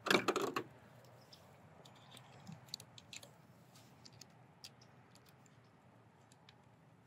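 Light handling noise from wiring a small electrical barrel switch: a short rustle at the start, then scattered small clicks and ticks as wires and terminals are worked into place by hand.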